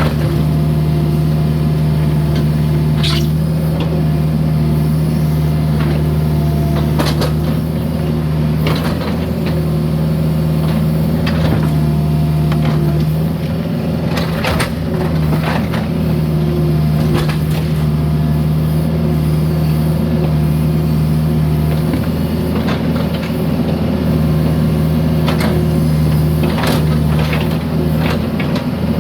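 Mini excavator engine running steadily under load, with a series of sharp clanks and scrapes as the bucket works broken concrete.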